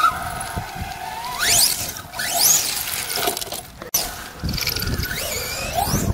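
Brushless electric RC stadium truck running on a 6S LiPo with a 1700kv motor, its high motor whine rising sharply three times as it accelerates in bursts, over the rumble of the truck on the ground.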